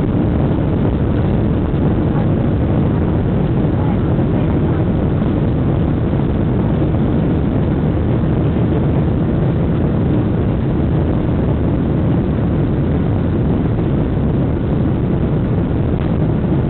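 Boeing 747 on its takeoff roll, heard from inside the cabin beside the wing: engine noise and runway rumble blend into a steady, loud rush, heaviest in the low end.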